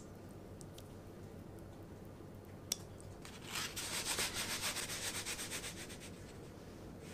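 Paper baking mold full of ganache being shaken back and forth by hand, the paper sliding and rubbing against the table in quick repeated strokes for about three seconds, to level the chocolate. A single sharp click comes shortly before.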